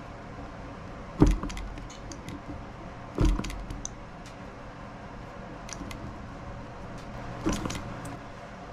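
Three separate sharp knocks, about one, three and seven and a half seconds in, from hands working the small model engine's flywheel and wooden base, over a steady low hum; the engine is not running steadily.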